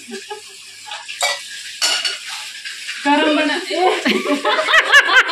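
A spoon stirring and clinking against small steel bowls and a pan on a stove, in short scattered taps. About three seconds in, lively women's voices with laughing take over and grow louder.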